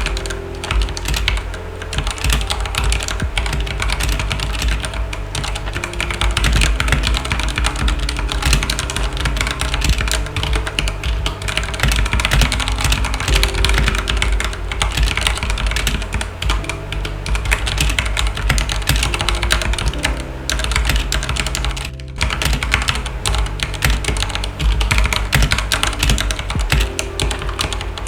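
Continuous fast typing on a Redragon K552 mechanical keyboard with linear red switches (Cherry MX Red equivalents): a dense run of keystroke clacks, with a short pause about three-quarters of the way through. Background music plays underneath.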